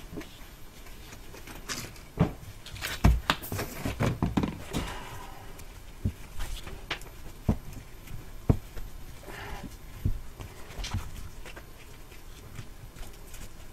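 Exhaust heat wrap being wound by gloved hands around an exhaust up pipe with a flex section held in a bench vise: rustling of the wrap with irregular knocks and taps as the pipe and wrap are handled, the loudest about three seconds in and again past eight seconds.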